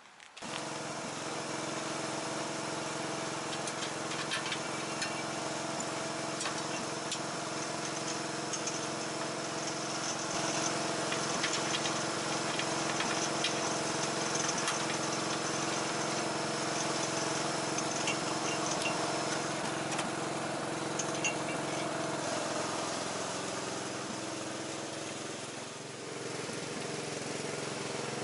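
Riding lawn tractor engine running steadily, with a few light metal clinks. Its speed sags about three-quarters of the way through and picks up again near the end.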